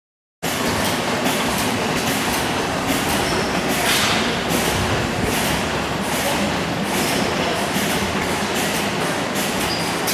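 Antique stationary gas engines running together, a dense steady clatter of exhaust pops and mechanical clicks that begins abruptly about half a second in.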